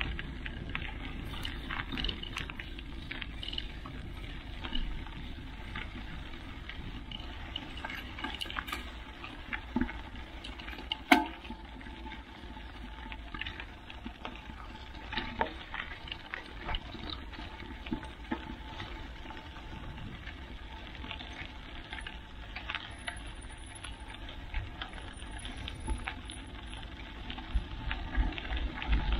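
Mountain bike tyres rolling over a gravel trail: a steady crunching hiss scattered with small ticks of loose stones, and one sharp click about eleven seconds in.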